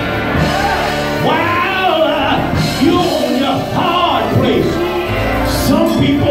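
Gospel church music: voices singing over instrumental backing.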